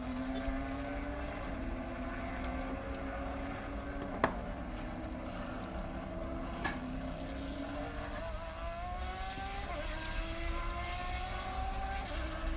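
Race car engine at speed, its pitch climbing slowly and dropping back at a couple of upshifts in the second half. A few sharp clicks sound over it, the loudest about four seconds in.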